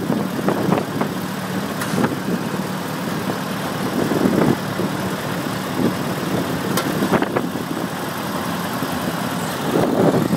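Tractor engine running steadily, heard from the seat, with a few short rattles and knocks.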